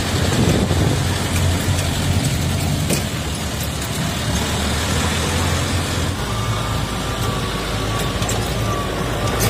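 Open safari vehicle on the move: steady low engine and road noise under an even hiss of wind on the microphone.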